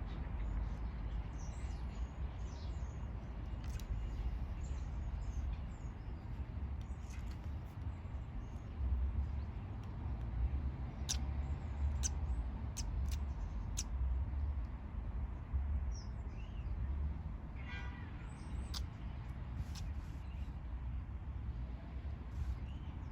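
A small animal giving a quick run of about five short, sharp sneezes, with what may be another sneeze a few seconds later, over a steady low rumble. A few faint high chirps sound here and there.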